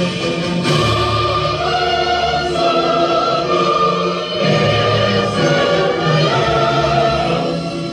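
Choral music with orchestra: a choir singing long held notes over an orchestral accompaniment.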